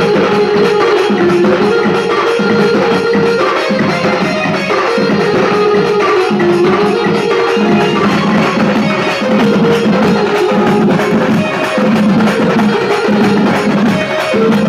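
Karma folk dance song played loud on a DJ sound system: a steady drum and percussion beat pulsing about once a second under a repeating melody line.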